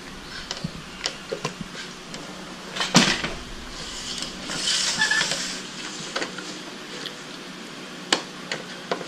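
Plastic Hot Wheels toy track pieces clicking and clattering as they are handled and fitted together on a hard tabletop. There is one sharp knock about three seconds in, a short rustle a second or two later, and another clear click near the end.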